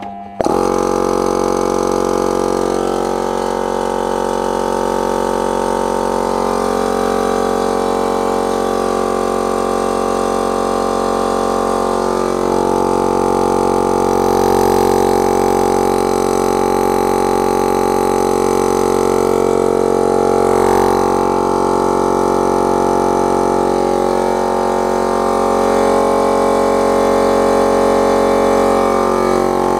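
Chinese single-phase 800–1000 W Patriot air compressor motor starting at once about half a second in and running steadily with a hum. The motor was just repaired after a short between its run and start windings, which had left it humming without turning.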